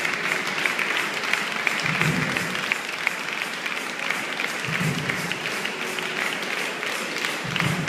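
Audience applauding: a dense, steady patter of many hands clapping, over music with a deep beat about every three seconds.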